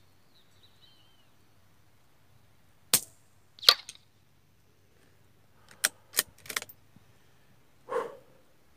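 A .22 LR rifle being fired at a brick target: two sharp cracks about three and nearly four seconds in, a quick run of metallic clicks around six seconds, and a duller knock near the end.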